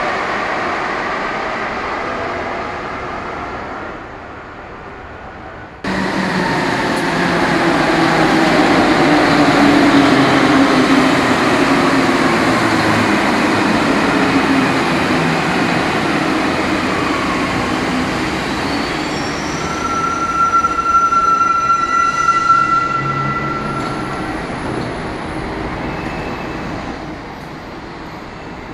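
Alstom NS-16 rubber-tyred metro train running and slowing, with its whine falling in pitch as it decelerates. A high steady squeal lasts a few seconds near the end as it comes to a stop. The sound jumps abruptly louder about six seconds in.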